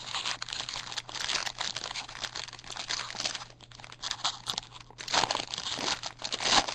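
Trading card pack wrapper being torn open and crinkled by hand, a dense crackling with brief lulls partway through and a louder crinkle near the end.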